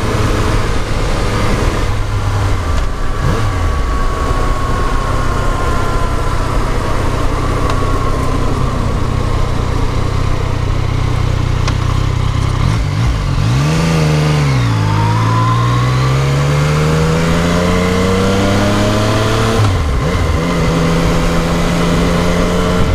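Yamaha MT-09's inline three-cylinder engine running under way, with a rush of wind. About fourteen seconds in its pitch dips, then climbs steadily for several seconds as the bike accelerates. Near twenty seconds it falls away and then holds steady.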